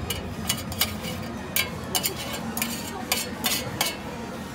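Metal kebab tongs and a steel scraper-spatula clicking and clinking against each other and the food in a quick, irregular series of about ten sharp taps, while chopped chicken is spread onto a tortilla.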